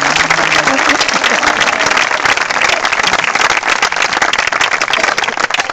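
Audience applauding: dense, steady clapping from a seated crowd that cuts off abruptly at the end.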